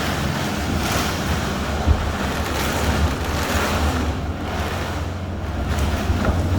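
Storm noise: a steady rush of rain and wind that swells and eases in gusts, with wind buffeting the microphone, over a low steady hum.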